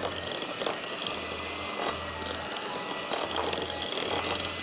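Electric hand mixer running, its twin beaters creaming softened butter in a glass bowl: a steady motor whine with irregular clicks and rattles as the beaters knock against the glass.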